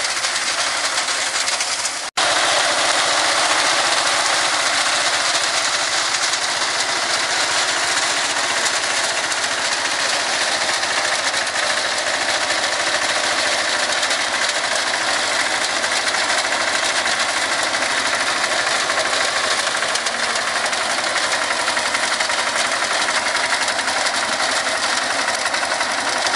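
A tractor-mounted reaper at work: a tractor engine running with a fast, steady mechanical clatter. The sound cuts out for an instant about two seconds in.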